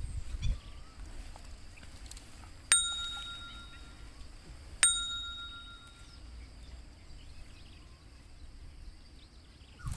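Two bright bell-like dings about two seconds apart, each ringing out briefly: a subscribe-button notification sound effect, over faint outdoor background.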